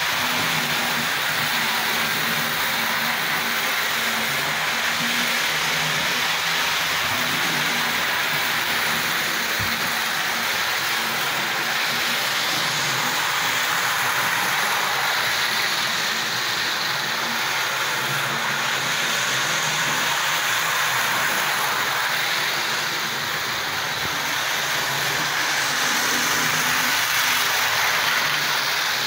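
Model railway diesel multiple unit running on the layout track: a steady whir of its small electric motor and wheels rolling on the rails, with a faint low hum in the first half.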